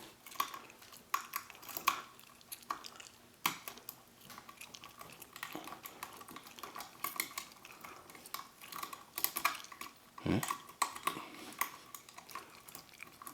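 Lock picking in a small pin tumbler filing-cabinet lock: irregular light metallic clicks, ticks and short scrapes of the pick and tension tool against the plug and pins.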